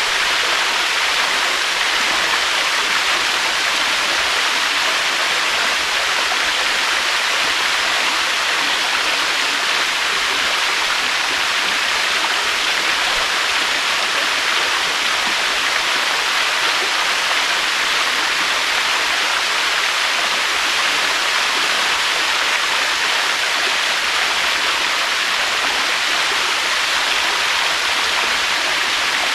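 Waterfall: a steady rush of falling water, an even hiss with no swells or breaks.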